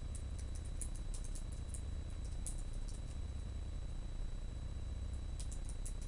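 Typing with long fingernails on a laptop keyboard: quick runs of light, sharp key clicks, pausing for about two seconds past the middle before a short run near the end, over a steady low hum.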